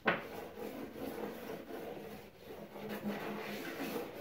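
A C.H. Hanson magnetic stud finder sliding and rubbing across painted drywall, a continuous scraping that starts with a sharp knock as it meets the wall. The magnets are searching for the drywall screws or nails that mark a stud.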